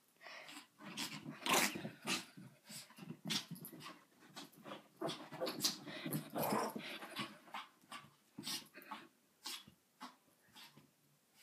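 Small white dog making weird noises in quick, irregular bursts as it rolls and rubs itself along the carpet; the bursts thin out near the end.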